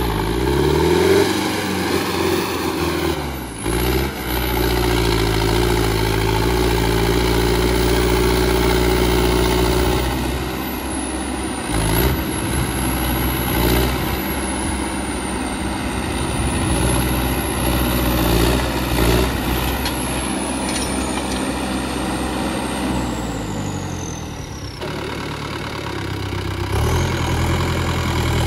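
Modified Sonalika tractor's diesel engine running hard through a wheelie stunt, the revs rising and falling several times as the front end lifts and the tractor stands up on its rear wheels. A few short knocks come through, around four seconds and twelve seconds in.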